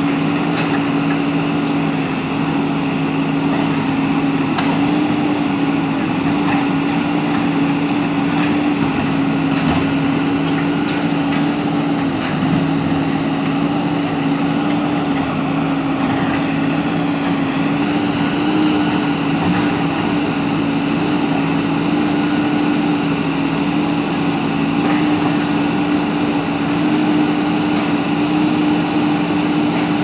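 JCB backhoe loader's diesel engine running steadily at working speed while the backhoe arm is worked, a constant drone with no pauses.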